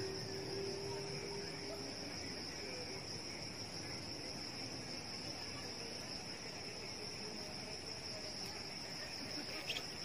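Insects trilling in one steady, unbroken high-pitched chorus.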